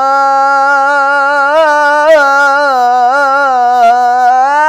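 A young male voice singing an Islamic ibtihal solo, holding one long melismatic note with wavering ornaments that rises in pitch near the end.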